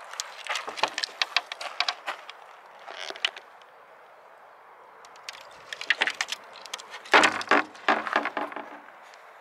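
Footsteps crunching on gravel, in uneven bursts of sharp clicks, loudest near the end.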